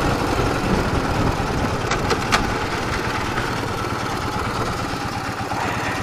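Ural motorcycle's air-cooled flat-twin (boxer) engine running steadily, with two short clicks about two seconds in.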